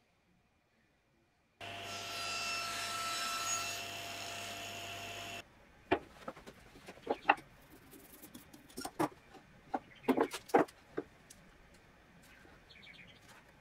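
A steady hum and hiss with a faint whine, lasting about four seconds and cutting off suddenly. Then scattered light knocks and clicks as wooden edge-banding strips and a plastic glue bottle are handled and set down on a wooden workbench.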